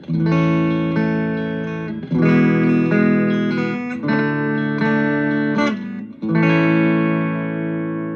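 Electric guitar played clean through an amp: four chords strummed about two seconds apart, each left to ring and slowly fade.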